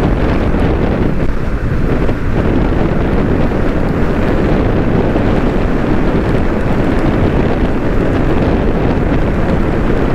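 Steady wind rushing over the microphone of a moving motorcycle, with the bike's engine and road noise underneath.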